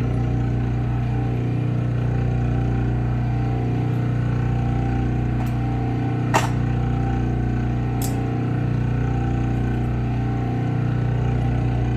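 Clipper blade sharpening machine running steadily: a constant motor hum from the spinning plate, broken by one sharp click about six and a half seconds in and a lighter one about a second and a half later.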